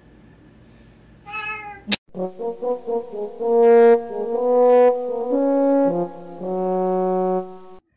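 A cat's short meow about a second in, then a cut to brass music: a slow tune of long held, horn-like notes.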